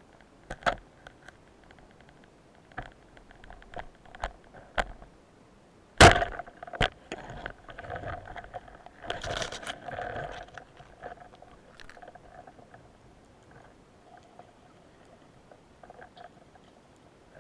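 Underwater sounds of a speargun and diving gear: scattered clicks and knocks against rock, with one loud sharp crack about six seconds in as the speargun fires, followed by a brief rushing scrape.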